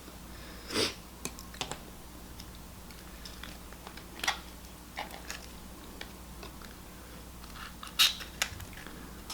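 Scattered sharp crunches and clicks from a small lobster's shell being cracked and picked apart while eating, the loudest about a second in and near the end.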